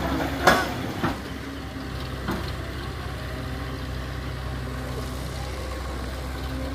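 Farm tractor's diesel engine idling steadily, with three sharp knocks in the first two and a half seconds, the loudest about half a second in.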